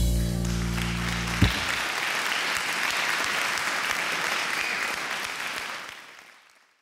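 The closing background music ends on a held low chord that a sharp hit cuts off about one and a half seconds in. A steady, bright hiss follows and fades out near the end.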